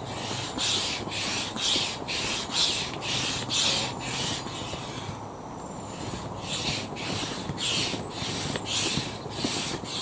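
Hand-operated stirrup pump with a pressure gauge inflating an inflatable kayak: rhythmic rushes of air through the pump and hose at about two strokes a second, with a short pause about five seconds in. The kayak's chambers are being pumped up to about 1.5 on the pump's gauge.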